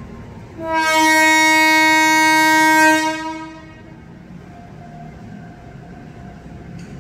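Train horn sounding one long, steady blast of about two and a half seconds, starting about half a second in.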